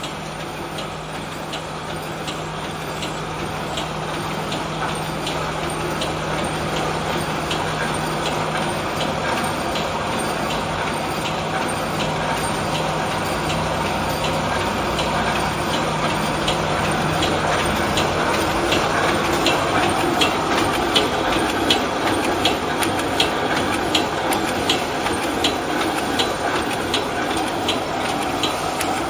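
Wire mesh welding machine running, its welding head coming down in an even clacking rhythm a little over once a second over a continuous mechanical clatter. A steady low hum underneath fades out about two-thirds of the way through.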